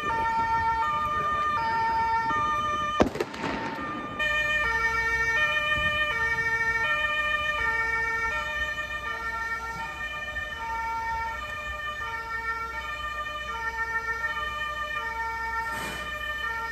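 Two-tone emergency siren alternating between a high and a low note about every half second, with a low vehicle rumble beneath. A sharp bang about three seconds in is the loudest moment; after it the siren carries on at a lower pitch.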